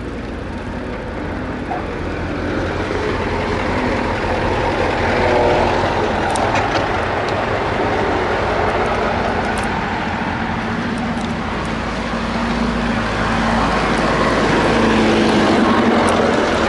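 A mountain bike rolling and rattling over a rough, washboard dirt road, with a steady low rumble and a truck engine running, its hum strongest in the second half.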